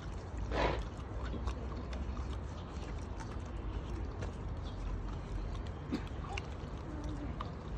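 Samoyed dog licking and lapping at a small plastic cup: scattered wet tongue clicks over a steady low background hum, with one louder, brief burst of noise about half a second in.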